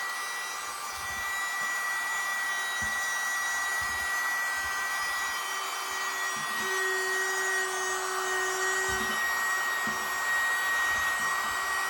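Mini USB vacuum cleaner running with a steady high whine and air hiss, with a few soft low knocks underneath.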